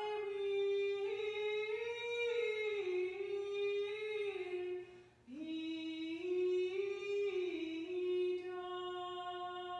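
A single unaccompanied voice chanting a liturgical plainsong melody, holding notes that step up and down by small intervals. It comes in two phrases, with a breath about five seconds in.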